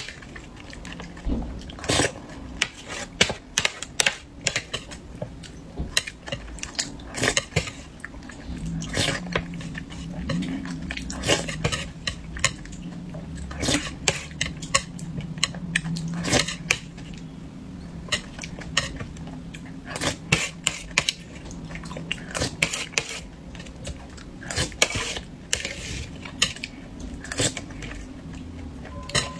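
Close-miked eating: utensils clicking irregularly against a bowl and dishes, with chewing between the clicks.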